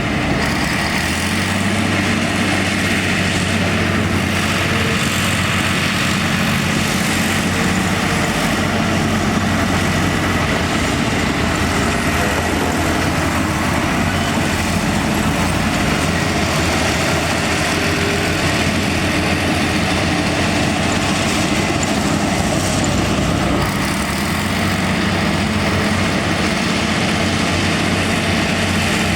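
Heavy dump truck engine running steadily, a constant low hum that does not rise or fall.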